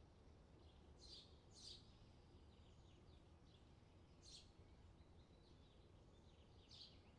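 Faint chirps of a small bird, several short high calls spaced irregularly, over a low steady background hum.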